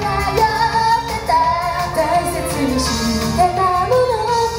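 Female J-pop idol group singing live over pop backing music, played loud through a concert hall's PA.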